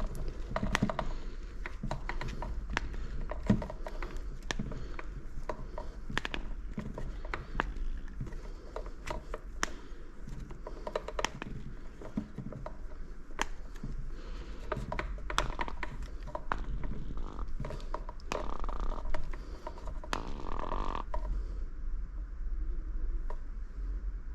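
Irregular clicks, taps and clunks of metal fork parts and hand tools being handled and fitted during assembly of a Fox 40 suspension fork, over a low steady hum.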